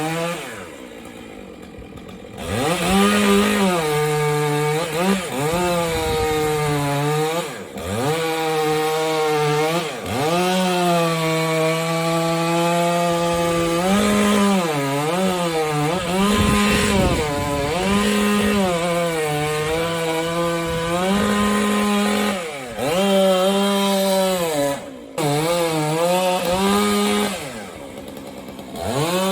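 Two-stroke chainsaw cutting through a large pine trunk. Its engine pitch sags under load and climbs back again and again as the bar works the cut. It drops back to a quieter, lower idle briefly near the start and again near the end.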